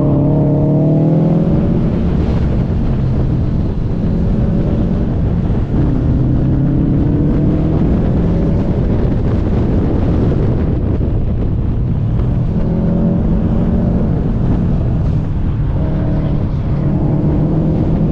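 Car engine under hard driving, its pitch climbing and dropping again and again as it accelerates and lifts off, over steady road and wind rumble.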